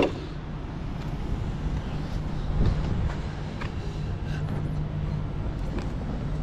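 Kenworth semi-truck's diesel engine idling with a steady low hum. A sharp click right at the start and a light knock about two and a half seconds in.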